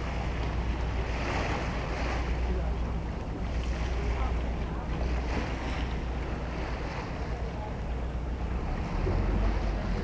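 Steady low engine rumble of a vaporetto (Venetian water bus) under way, with wind buffeting the microphone and water rushing past the hull. The rumble grows a little louder near the end.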